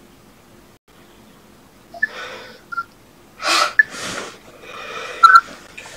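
A man's loud, breathy inhales and exhales close to the microphone, starting about two seconds in, with a few small clicks between them.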